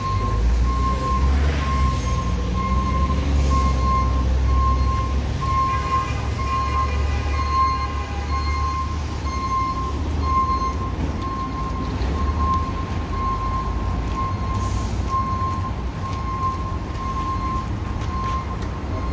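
Low rumble of vehicles, with an electronic beep repeating at an even pace throughout. A brief chord of several higher electronic tones sounds about six to nine seconds in.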